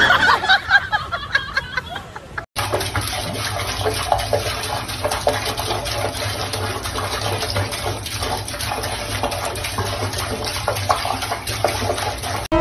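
Tap water running steadily into a sink, the stream splashing in small irregular spatters as a cat paws at it, starting abruptly about two and a half seconds in after a brief, different sound.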